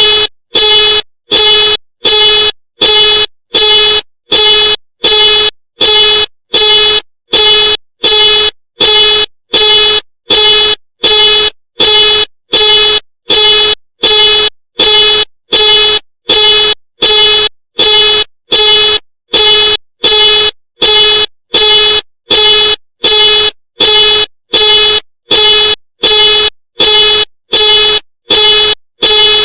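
Ford car alarm sounding the car horn in even, rapid pulses, about three honks every two seconds, each short blast identical and loud.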